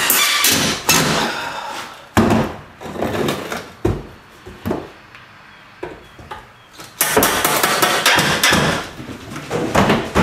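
Cordless drill driving wood screws into a pine door-frame brace, in several bursts of one to three seconds with short pauses between, the longest in the second half.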